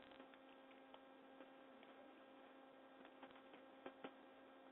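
Near silence: a faint steady electrical hum, with a few faint ticks of a stylus tapping a tablet screen during handwriting.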